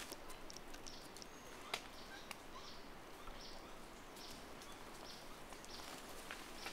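Faint forest ambience: short high chirps repeating about once a second, with a few sharp clicks.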